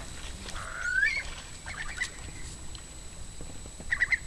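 Birds calling: one rising call about a second in, then short, quick notes in groups of two or three, twice.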